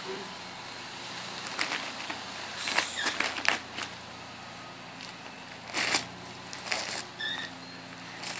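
Christmas wrapping paper crinkling and tearing in several short bursts as an Alaskan Malamute chews and pulls at a wrapped present.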